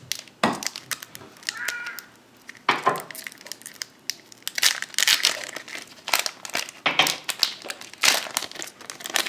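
Foil Pokémon booster-pack wrappers and packaging crinkling in irregular crackly bursts as they are handled and torn open.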